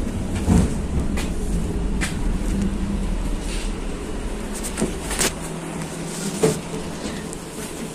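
Interior of a 71-623-02 (KTM-23) tram under way: a low rumble with a faint steady hum and scattered knocks and rattles from the car. The rumble fades about five and a half seconds in as the tram slows.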